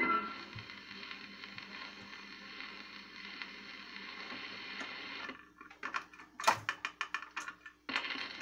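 Steady surface hiss from a 78 rpm shellac record as the side plays out, then an automatic record changer cycling with a quick run of clicks and clunks as the next disc drops. The hiss of the fresh side's lead-in groove starts near the end.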